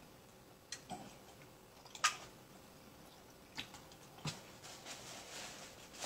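Faint, scattered clicks and taps of eating at a table, utensils and takeout containers being handled, the sharpest about two seconds in, then a soft paper napkin rustle near the end.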